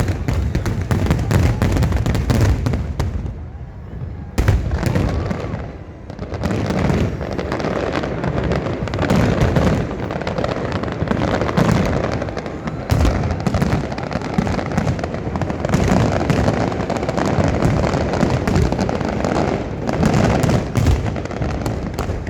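Fireworks display: a dense, continuous run of bursting bangs and crackling, with a short lull about four seconds in before the barrage picks up again.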